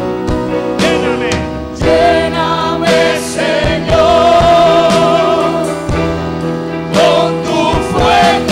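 Live gospel worship singing: a lead male voice with backing singers holding long, wavering notes over a keyboard's sustained chords.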